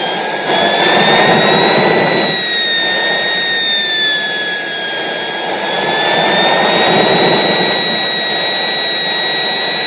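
Small jet turbine engine running: a high whine that drifts gently up and down in pitch over a loud rushing of air that swells and eases every few seconds.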